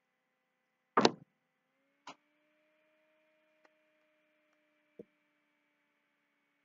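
A few knocks of hands against a desk during sign language: one sharp knock about a second in, then three fainter clicks spread over the next few seconds. A faint steady electrical hum runs underneath.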